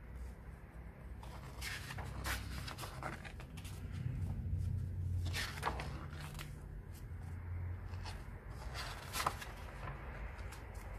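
Pages of a comic-book graphic novel being turned by hand: a series of short, crisp paper swishes spread unevenly, the sharpest about nine seconds in, over a low steady rumble.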